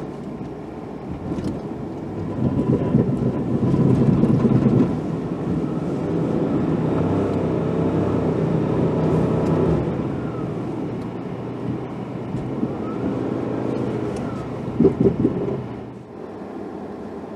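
Pickup truck engine heard from inside the cab, running under load and revving up and down as the truck pushes snow with its plow. A few sharp knocks come near the end, and the engine then settles quieter.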